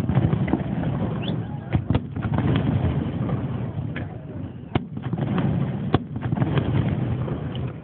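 Fireworks shells bursting overhead: about five sharp bangs at uneven intervals, over a steady background of people talking.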